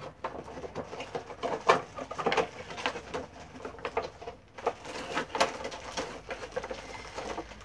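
Plastic packaging crinkling and rustling as toy packaging and a small wrapped item are handled and unwrapped, with irregular sharp crackles and ticks.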